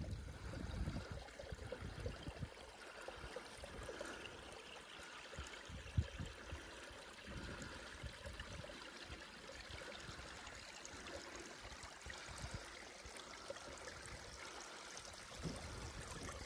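A stream running steadily, with a few low thumps, the clearest about six seconds in.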